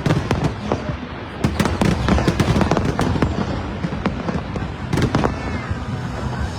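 Fireworks going off in quick succession: sharp cracks and bangs, several a second, over a continuous low rumble of shell bursts.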